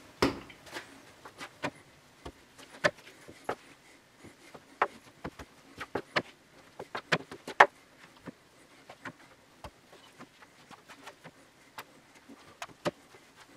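Irregular light taps and knocks of bagel dough being divided and weighed: a plastic dough scraper on the worktop, and dough pieces set down on and lifted off a stainless-steel kitchen scale.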